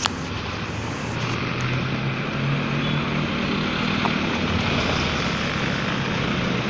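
Road traffic: a vehicle engine running with a steady low hum under a broad, even hiss of traffic noise.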